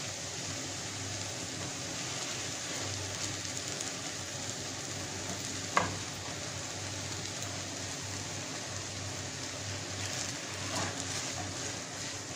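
Instant noodles and carrots sizzling in a frying pan while being stirred and tossed with a plastic spatula, a steady frying hiss. A single sharp knock a little before halfway, with a few faint ticks near the end.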